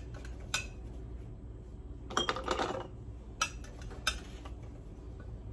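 A metal scoop clinking against a glass bowl and in-shell green peanuts clattering through a plastic canning funnel into a glass mason jar, in a few short separate bursts.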